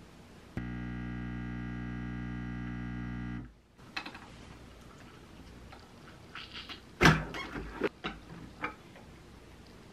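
illy iperEspresso capsule coffee machine's pump buzzing steadily as it brews, starting about half a second in and cutting off about three and a half seconds in. Then a scatter of light clicks and knocks as the mug is handled and taken out of the machine, the loudest a sharp knock about seven seconds in.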